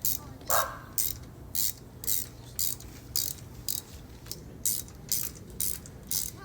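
Ratchet wrench with a 16 mm spark plug socket being swung back and forth to back out a spark plug, its pawl clicking in short bursts about twice a second.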